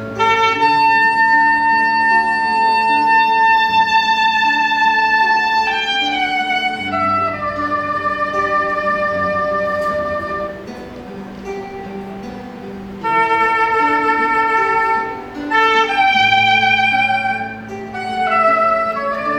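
Soprano saxophone playing a slow melody over a chordal accompaniment. It opens on a long high held note, then moves in falling phrases.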